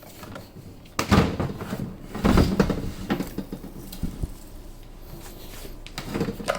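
Handling noise from a random orbit sander and its detachable side grip: hard plastic knocks and rubbing, with the loudest knocks about a second in and again around two and a half seconds in.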